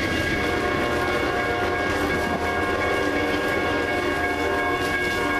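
Amtrak passenger train pulling away, its cars rolling by on the rails, with a steady chord of several tones held throughout over the rumble.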